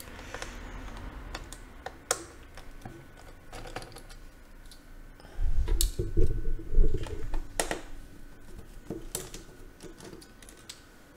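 The plastic case of an HP Stream 11 laptop being handled and shifted on a desk: scattered clicks and taps, with a burst of heavier knocks and rubbing about halfway through.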